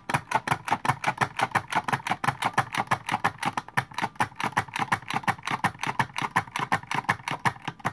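PM10-series automatic punch card punching machine punching holes in a mylar knitting-machine punch card in rapid succession: an even run of sharp clicks, about seven or eight a second, as it punches a line of holes. The clicking stops abruptly at the end.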